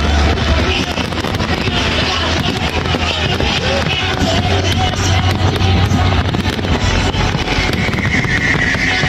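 A fireworks display: music over loudspeakers mixed with a dense, continuous crackle and bangs of fireworks and a low rumble.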